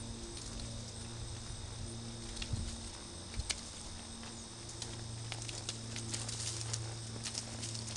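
Horse's hoofbeats on arena sand, soft and irregular, coming more often as the horse passes close by near the end. Behind them, steady high chirring of crickets and a steady low hum.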